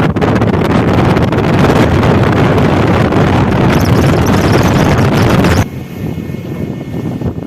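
Strong wind buffeting the microphone with a loud, rough rush that cuts off suddenly about five and a half seconds in, leaving a much quieter steady background.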